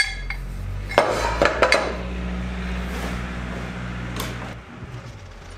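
Steel table ring of a spindle moulder set down on the metal table with a clank about a second in, followed by a steady low electric-motor hum from the machine that stops shortly after a click near the end.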